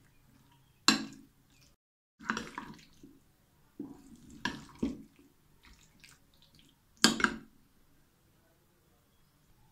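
A metal spoon stirs thick gram-flour batter with potato cubes in a glass bowl, in separate wet, squelching strokes. Sharp clicks of the spoon against the glass come about a second in and again around seven seconds.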